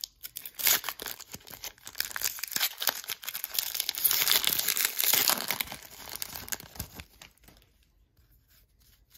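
A trading card pack's wrapper being torn open and crinkled, with dense crackling that is loudest a little past halfway. It dies down to a few light clicks near the end as the cards are handled.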